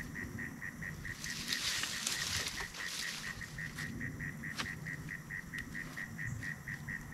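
A creature calling outdoors: a short high note repeated steadily about five times a second. A few sharp cracks and a brief hiss come in about one to three seconds in.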